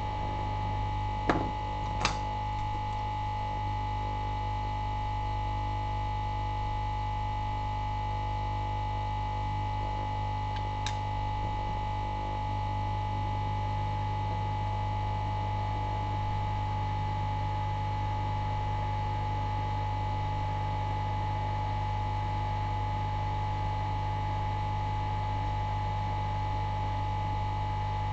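Hot air rework station blowing steadily while heating a chip to desolder it: a constant hum with a steady high tone. A few small clicks sound about one and two seconds in and again around the middle.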